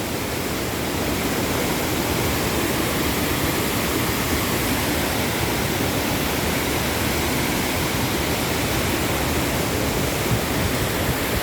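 Wahkeena Falls: a steady rush of falling, splashing water that does not change.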